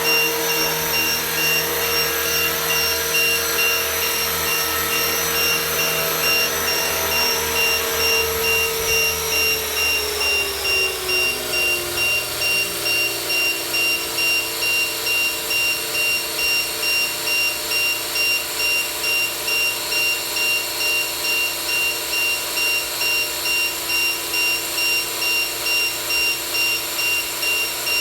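450-size electric RC helicopter (MD500E scale body) running with a steady motor and rotor whine; about ten seconds in the pitch glides down and settles to a lower steady whine with a regular pulsing beat, the rotor head speed dropping.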